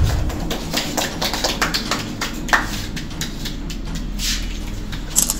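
Room noise: scattered short clicks, taps and rustles over a low steady hum.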